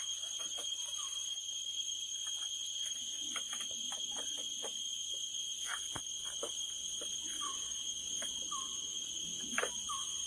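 Steady high-pitched insect drone from the surrounding forest, with scattered wooden clicks and knocks as green sticks are laid across a stick grill frame, the sharpest knock near the end. Short chirps recur about once a second.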